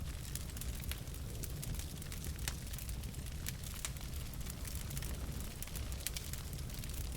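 Wood fire burning in a fireplace: many irregular sharp crackles and pops from the burning logs over a steady low rumble of the flames.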